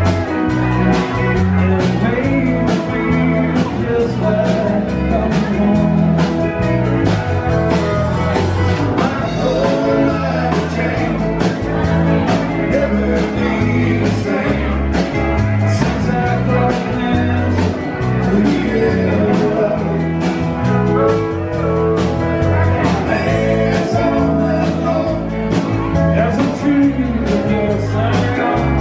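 Live country band playing: acoustic and electric guitars, electric bass, drum kit and pedal steel guitar, with a steady drum beat.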